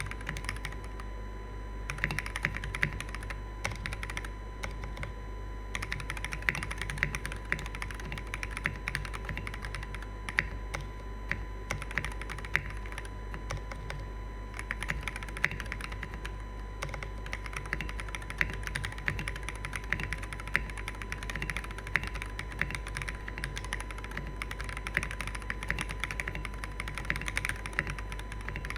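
Fast typing on a Crystalis80 custom mechanical keyboard with Durock POM switches in a stainless steel plate: a dense, uneven stream of keystroke clacks, with brief pauses near the start and again about halfway through.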